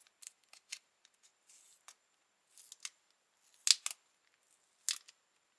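Thin clear plastic wrap crackling in scattered short crinkles as it is peeled off the back of a smartphone, the loudest crackle about two-thirds of the way in and another near the end.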